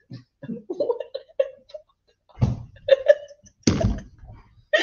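People laughing, with bits of muffled talk and two sudden louder bursts about two and a half and three and a half seconds in.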